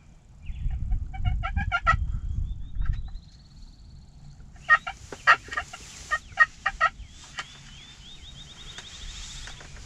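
Wild turkey calling: two runs of short, rapid yelping notes, the second about halfway in. A thin rising bird trill sounds twice between them, and a low rumble covers the first three seconds.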